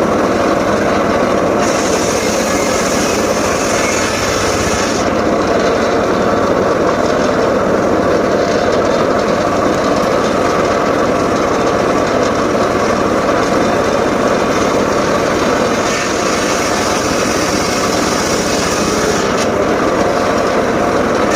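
Homemade circular saw rig cutting teak wood, its engine-driven blade running steadily. The high-pitched cutting noise grows stronger about two seconds in and again near the end.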